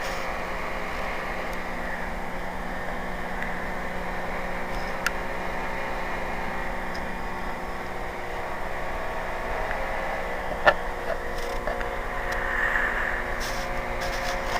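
Steady mechanical hum with a constant pitch, like a running motor or appliance, with a single sharp knock near the end.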